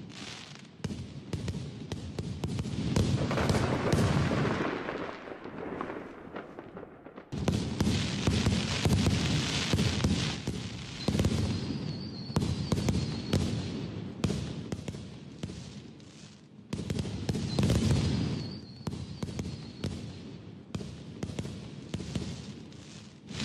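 Large fireworks display: a dense, continuous volley of bangs and crackling that swells and fades. It jumps suddenly louder about seven seconds in and again about seventeen seconds in.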